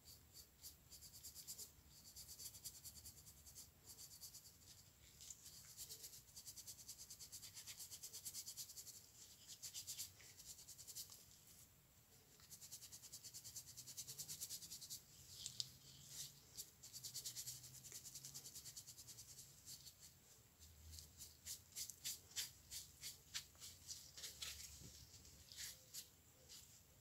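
Green abrasive scouring pad scrubbed rapidly back and forth over a wooden screwdriver handle while rubbing a brown finish into the wood: a faint, fast, scratchy rasping with a couple of short pauses. Near the end the strokes slow into separate swishes.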